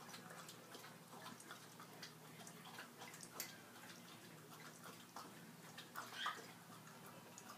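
A small dog lapping water from a bowl: faint, quick, irregular wet clicks, a few louder laps about six seconds in.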